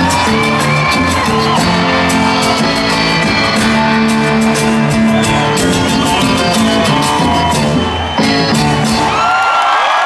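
Live rock band with drums and guitars playing the closing bars of a song, the audience shouting along. The band stops about nine seconds in, and cheering and whistling from the crowd take over.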